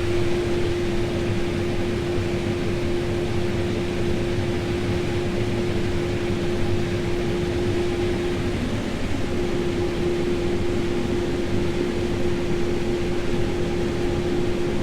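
Case IH AF9 combine running under load while harvesting corn, heard inside the cab: a steady machine drone with a steady whine over it that drops out briefly about halfway through.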